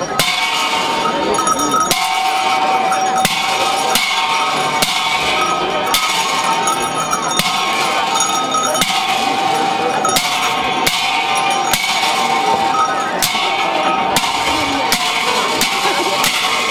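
Cymbals crashing in a slow, uneven beat, about one strike every second or so, each left ringing, over a steady ringing tone: the music that accompanies a masked cham dance.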